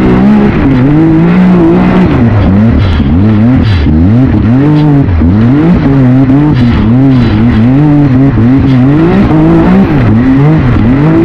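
Can-Am X3 side-by-side's engine at racing pace, revs rising and falling over and over, about once or twice a second, as the throttle is worked over the rough dirt track, heard close up from the car itself.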